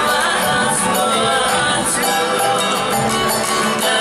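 Live Cook Islands music from the stage: voices singing over strummed string instruments, with a steady beat.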